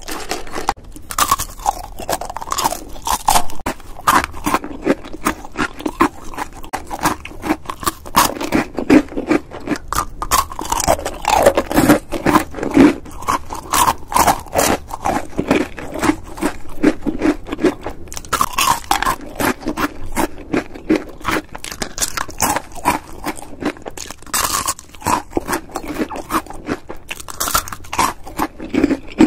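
Caramel-coated popcorn being bitten and chewed close to the microphone: a continuous run of crisp, rapid crunches and crackles.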